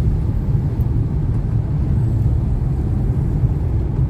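Steady low rumble of a car driving along a road, engine and road noise with no distinct events.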